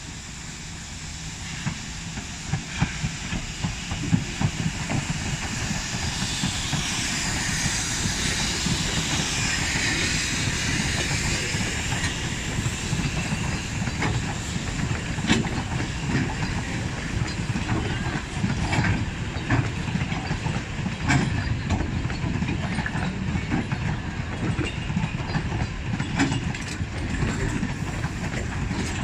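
Narrow-gauge steam train passing close by: the locomotive hisses steam for several seconds as it goes by, about six seconds in, then the carriages roll past with a steady rumble and the wheels clicking over the rail joints.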